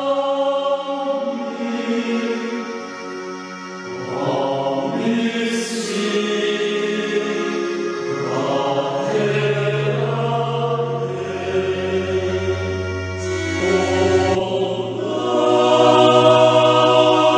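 A group of men's voices singing a slow hymn in Tetum, holding long notes over keyboard accompaniment with steady low bass notes. It swells louder near the end.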